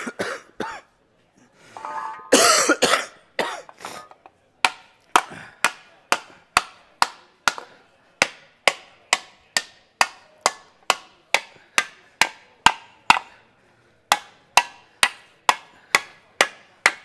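Mallet beating a sheet of aluminium over a hollowed block: a steady run of sharp knocks, about two a second, each with a short ring, working the panel fuller into a curved shape. Before the run there are a few scattered knocks and a brief noisy burst.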